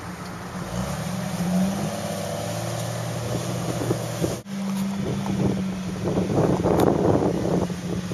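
Jeep Wrangler engine running steadily at low revs while crawling over slickrock. In the second half, wind gusts buffet the microphone.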